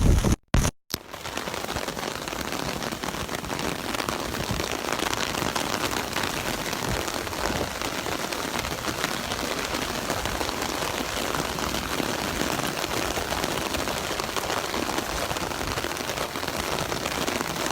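Heavy rain pattering steadily on an umbrella held over the microphone, a dense even hiss. The sound cuts out twice, very briefly, just after the start.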